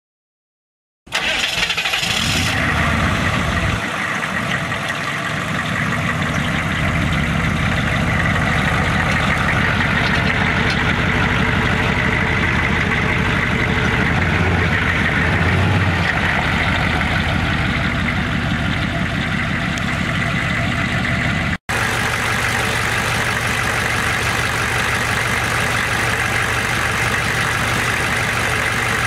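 The 6.5-litre turbo-diesel V8 of a 1994 GMC Sierra 2500 starting about a second in, the revs rising briefly and then settling into a steady idle.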